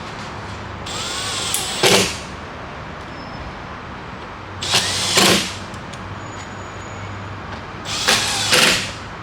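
Handheld power tool run in three short bursts about three seconds apart, each about a second long and louder near its end.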